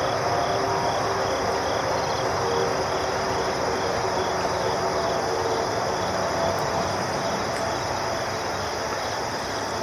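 Chorus of insects such as crickets: a steady high drone with a faint regular chirp pulsing about two to three times a second.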